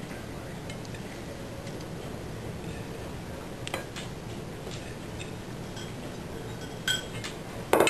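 A steady low room hum with a few faint, sparse clicks and ticks.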